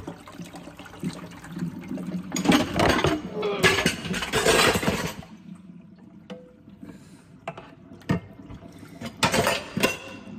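Water running from a tap into a big pot, a rushing spell of about three seconds starting two seconds in, then a shorter gush near the end, with a few sharp knocks in between.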